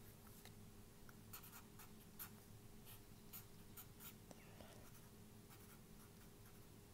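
Marker pen writing on paper in short, faint strokes, with a low steady hum underneath.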